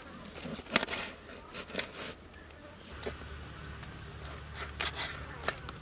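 Large knife cutting through seer fish, with scattered sharp scrapes and knocks of the blade against the cutting surface. A low steady hum joins about halfway through.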